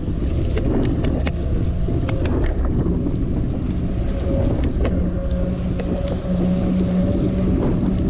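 Wind buffeting the microphone of a bicycle-mounted action camera riding at about 25–29 km/h, with the hiss of tyres on wet asphalt and scattered sharp clicks and rattles from the bike.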